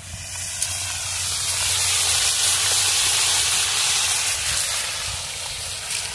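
Fish frying in hot oil on a plough-disc pan: a loud, steady sizzle that swells about half a second in and eases slightly near the end.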